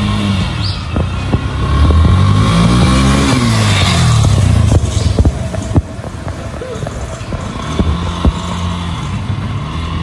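Small motorcycle engine riding past: its pitch climbs to a peak and falls again within a few seconds, then a steadier, quieter running note as the bike moves off down the road.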